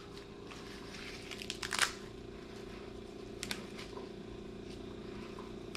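Soft rustling and tearing of fresh basil leaves being picked off their stems by hand, with a louder crinkle just before two seconds in and a light tick about halfway through, over a steady low background hum.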